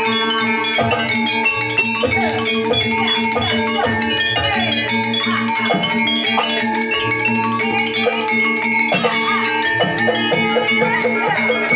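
Live Javanese jaranan gamelan music: struck metallophones and gongs ring in sustained tones over hand-drum strikes, with a sliding melody line weaving above them.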